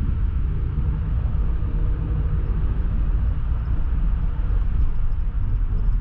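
Steady low rumble of a car driving at moderate speed, engine and tyre noise heard from inside the cabin.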